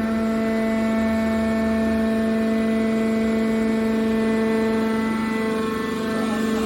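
Hydraulic power unit of a scrap-metal baler running with a steady, unchanging hum.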